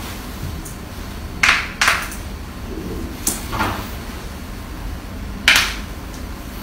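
Joints cracking under manual chiropractic manipulation: a handful of short, sharp pops, two in quick succession about a second and a half in, another pair around three and a half seconds, and the loudest near five and a half seconds, over a steady background hiss.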